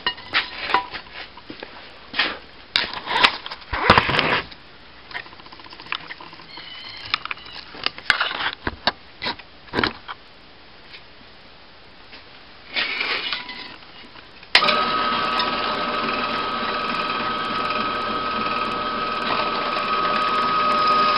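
Knocks and clatter of steel angle iron and wooden blocks being set up on a drill press table. Then, about two-thirds of the way in, the drill press motor switches on and runs steadily with a high whine.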